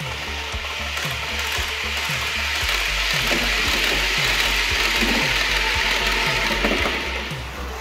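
The running noise of an H0 scale model ČD Railjet passing on the layout swells up about a second in and fades near the end. Background music with a steady beat plays underneath.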